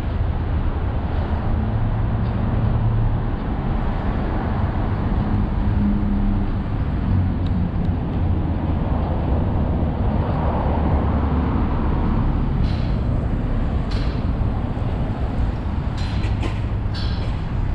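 Steady traffic noise from a busy road and the elevated expressway above it, a dense, even rumble with no single vehicle standing out. A few short clicks come near the end.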